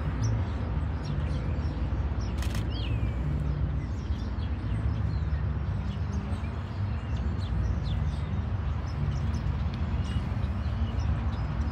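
Small birds chirping now and then over a steady low rumble; one call about two and a half seconds in falls in pitch.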